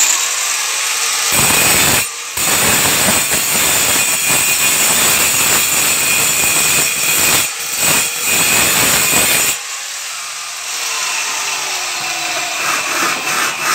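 Angle grinder with a diamond blade grinding into marble: a harsh, steady grinding with a few very short breaks, turning lighter and thinner for the last few seconds.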